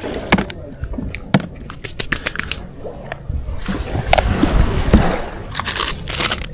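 Fishing gear being handled and packed up on concrete: a string of sharp clicks and knocks, with plastic gloves and a plastic bag rustling and scraping, loudest in the second half.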